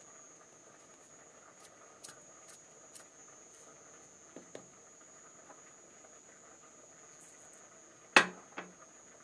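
Quiet kitchen handling while black pepper and salt are added to a bowl: a few faint light clicks, then a sharp knock about eight seconds in and a smaller knock just after. A faint steady high-pitched whine runs underneath.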